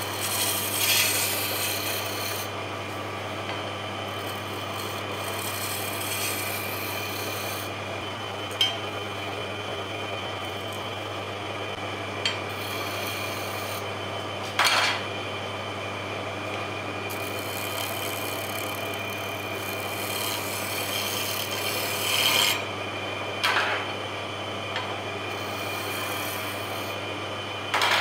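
Wood lathe running with a steady low hum as a turning chisel cuts the spinning wooden blank, a continuous rasping with a few short, louder bites of the tool, about a second in, midway, and twice more later on.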